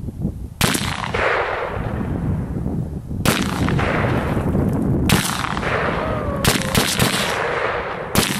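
An M1 Garand semi-automatic rifle firing .30-06 rounds: single shots a few seconds apart, then several in quick succession near the end, each followed by a long rolling echo.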